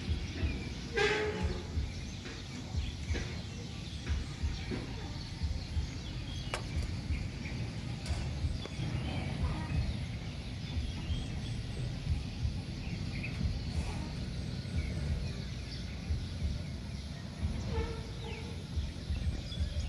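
Uneven low rumble of background noise in a cattle shed, with a short high call about a second in and a fainter one near the end.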